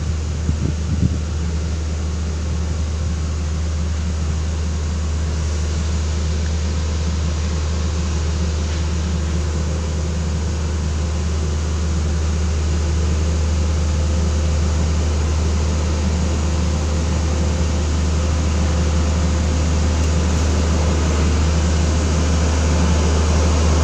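Single-drum vibratory road roller compactor running with a steady deep hum, growing louder as it rolls up close.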